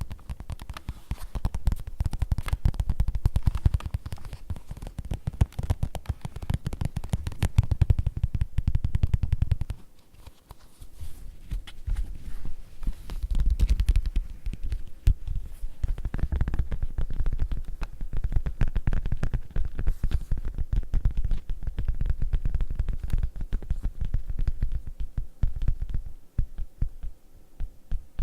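Rapid tapping on leather: a dense run of soft, low thuds that pauses briefly about ten seconds in, then resumes.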